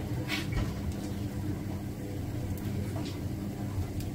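Steady low mechanical hum of a running household appliance motor, with a couple of faint clicks.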